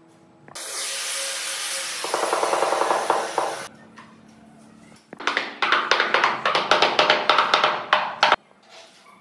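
Rubber mallet tapping a large porcelain floor tile down into its mortar bed, a quick run of about five taps a second for some three seconds. It comes after a long hiss of about three seconds.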